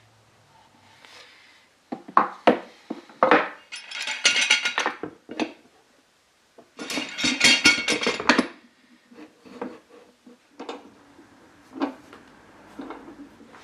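Metal screw clamps knocking and clanking against wooden cauls as they are set in place and screwed down over freshly glued veneer, with two spells of rattling metal clatter in the middle and a few lighter knocks near the end.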